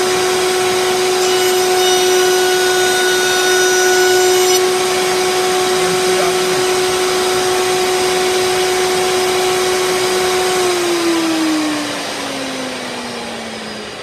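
Router on a router table running at full speed with a steady high hum. From about one to four and a half seconds in, a higher whine joins it as the bit cuts the edge of a board. About three seconds before the end the router is switched off and spins down, its pitch falling.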